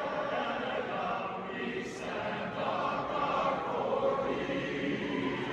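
Large arena crowd singing a national anthem together, thousands of voices blended into one sustained, echoing chorus.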